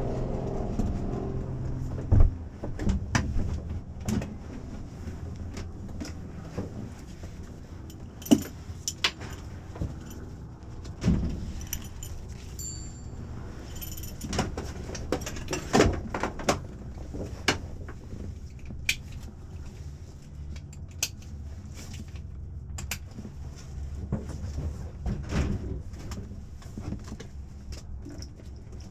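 Scattered clicks, knocks and small rattles of a pilot handling things in a light-aircraft cockpit (harness buckles, panel controls, headset) over a low steady rumble, with the engine not running.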